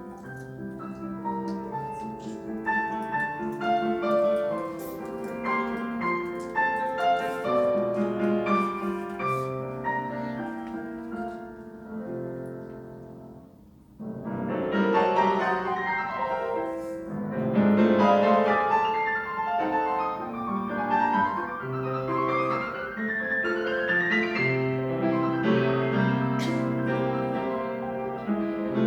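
Piano playing a classical piece. The music dies away almost to a pause about halfway through, then comes back louder with quick rising runs.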